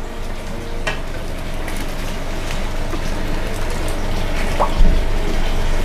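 Aquarium water sloshing and bubbling as a hand net is worked through the tank to catch a large snakehead, over a steady low hum. A sharp knock comes a little before the end.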